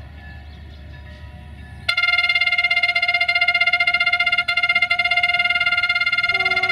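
Siemens Desiro VT642 diesel multiple unit's horn starting suddenly about two seconds in and sounding on as a loud, rapidly stuttering 'machine gun' blast, over the low rumble of the approaching railcar.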